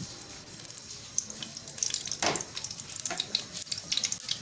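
Melted butter and ghee heating in a metal kadhai, crackling and sizzling lightly in scattered pops that grow busier after the first second. There is one soft knock a little past two seconds in.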